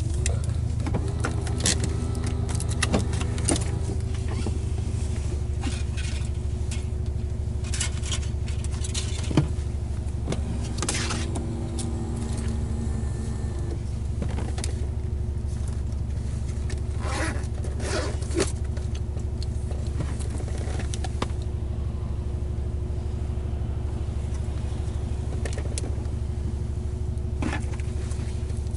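Car engine idling, a steady low hum heard from inside the cabin, with scattered clicks and rustling as someone shifts about in the seat.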